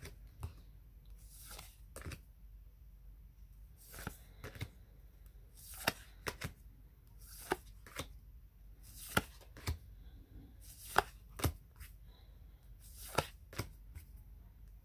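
Glossy black-and-gold tarot cards being flipped through by hand, one card at a time. Each move is a quiet slap or click, often two close together, coming about every second and a half.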